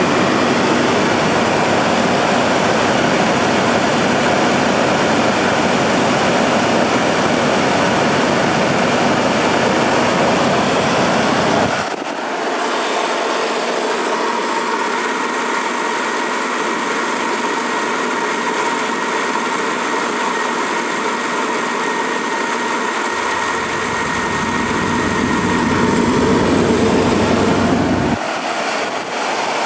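Chevrolet S10 pickup engine idling steadily soon after a cold start, with no lifter tick to be heard after an engine flush. Its sound changes abruptly about twelve seconds in and again near the end.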